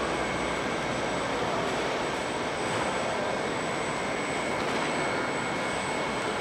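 Steady rushing background noise of a large airport terminal hall, even and unchanging, with faint constant high-pitched whines running through it.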